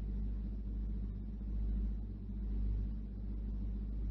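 Steady low hum with a faint hiss, the background noise of an old sermon recording, with no speech.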